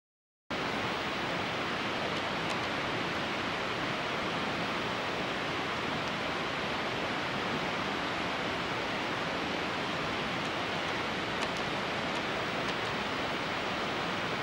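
Steady rush of running water, a constant even hiss that starts abruptly about half a second in.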